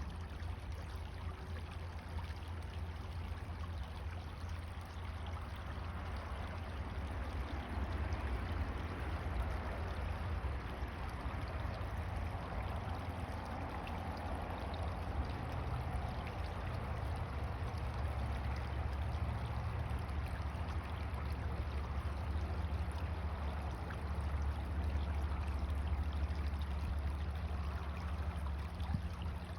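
Creek water in a bayou flowing and trickling steadily, over a constant low rumble.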